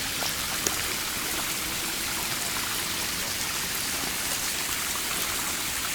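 Running water with a steady, even rush from a stream or small falls.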